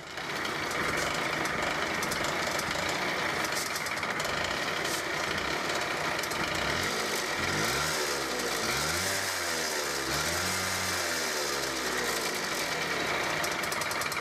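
Honda Dio AF27 scooter's 50cc two-stroke engine kicked over and catching at once, then running steadily, with the revs rising and falling several times in the middle as the throttle is worked. The engine has a worn piston group with very weak compression and will not hold an idle.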